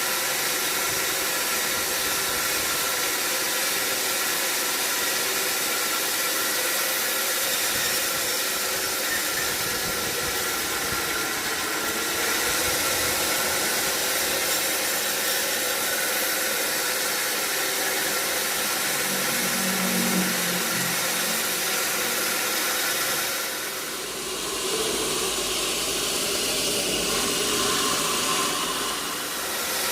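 Sawmill machinery running steadily: a mechanical hum with a strong hiss over it. About three-quarters of the way through, the level dips briefly and the sound changes.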